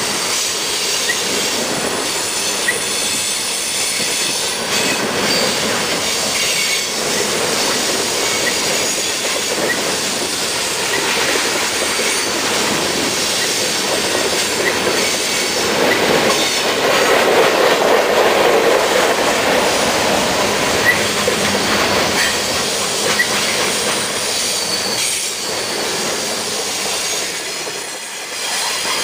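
Freight cars, mostly tank cars, rolling past close by on curved track: a steady, noisy rumble and rattle of steel wheels on rails with occasional light clicks, growing a little louder about halfway through.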